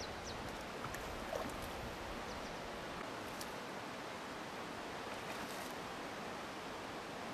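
Steady rush of river water, an even hiss, with a few faint high ticks over it.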